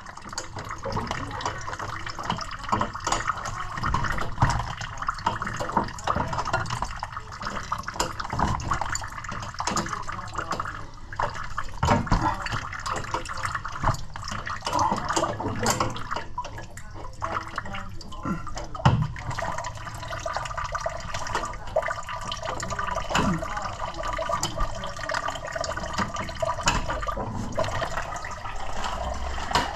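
Water trickling and dripping from a gas boiler's drain valve into a small tub: leftover water draining out of the heat exchanger. Scattered knocks and clicks come from hands and tools on the pipework.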